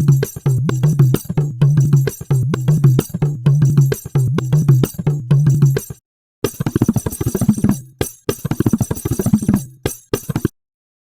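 Indian percussion loops from a Kontakt sample library: a fast rhythmic pattern with a deep, pitched bass drum stroke that repeats, stopping about six seconds in. After a short gap a second pattern of drum strokes with pitched, bending tones plays and stops a little before the end.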